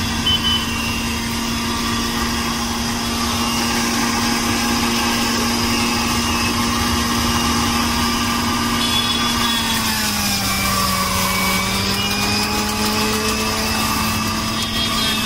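Electric juice extractor running steadily with a motor hum while aloe vera gel is juiced. Its pitch drops slightly about ten seconds in as gel is pushed down the feed chute and loads the motor.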